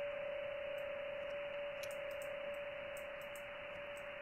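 A PSK31 digital-mode signal on the 20-metre band, heard through a software-defined radio's upper-sideband audio. It is one steady tone near 600 Hz with slight flickers, over the receiver's hiss. A few faint clicks come now and then.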